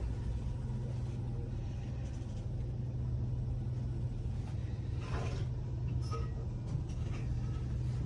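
Steady low mechanical hum, with a few faint knocks and rustles about five to six seconds in.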